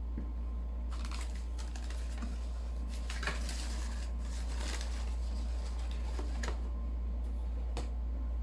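Rustling and crinkling of sneaker packaging being handled, mostly in the first half, with a few light clicks and taps later, over a steady low electrical hum.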